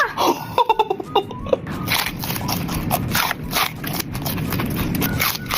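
A person chewing crunchy food, with irregular crisp crunches several times a second. A short vocal sound comes in the first second or so.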